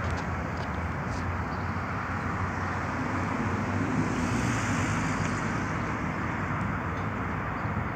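Steady rushing outdoor background noise at an open construction site, with no distinct events.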